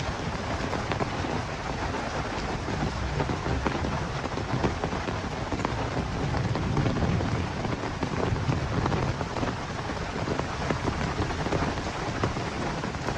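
Heavy rain falling steadily, with many close drops ticking on surfaces. Under it runs a low rumble of wind.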